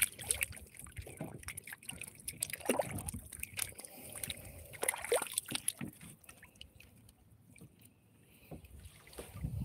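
Water lapping against the side of a small outrigger boat, with irregular drips, trickles and small plops, quieter near the end.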